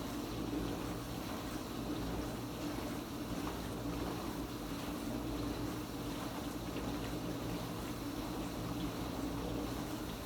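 Kenmore Ultra Wash 3 dishwasher running its quick rinse cycle: the pump hums steadily while water sprays and sloshs inside the tub.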